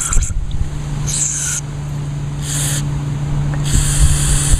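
Aerosol carb cleaner sprayed in short hissing bursts, about four of them, into a small-engine carburetor's passages to flush out dirt. A steady low hum runs underneath.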